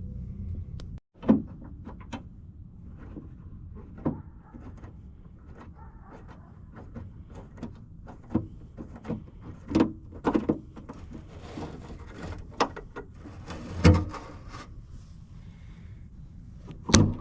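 Irregular clicks, knocks and light clanks of hand work on a car door's hardware, as a bolt on the door handle is worked out. A few sharper knocks stand out: about a second in, twice around the middle, and near the end.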